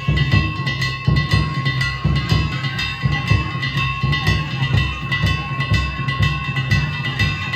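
Danjiri festival music: a big taiko drum beating in a quick, steady rhythm while small hand gongs are struck rapidly, their metallic ringing running continuously over the drum.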